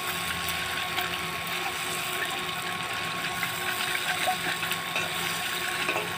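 Steady sizzle and small crackles from food cooking in a wok over a wood fire, with a faint steady hum underneath.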